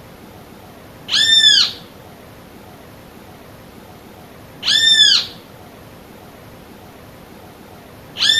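Great kiskadee calling: a single drawn-out note that rises and falls, given three times about three and a half seconds apart, the last starting near the end.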